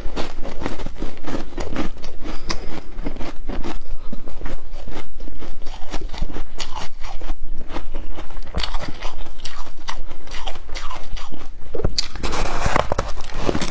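Biting and chewing foam ice topped with flaked humidifier ice: a continuous run of crisp crunches.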